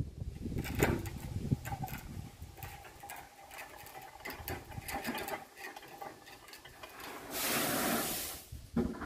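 Stones being tipped down a concrete-ring well to form its bottom gravel filter: scattered knocks and clatters, then a rush of poured gravel lasting about a second, from about seven seconds in.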